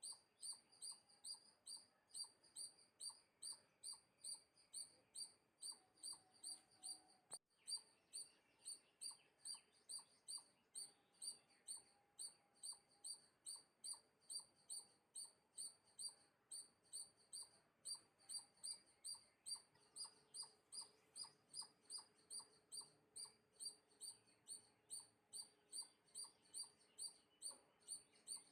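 Faint, high, short chirps, each falling in pitch, repeated very evenly about twice a second without a break.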